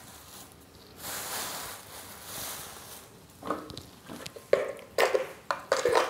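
A soft rustling hiss, then a quick series of sharp clinks and knocks from kitchen utensils and containers being handled on the counter.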